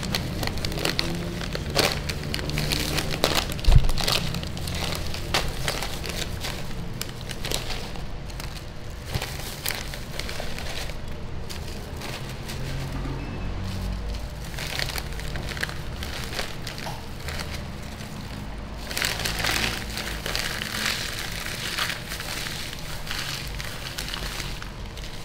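Plastic potato-chip bag crinkling and crackling as hands crush the chips inside it and shake the pieces out, with one sharp knock about four seconds in.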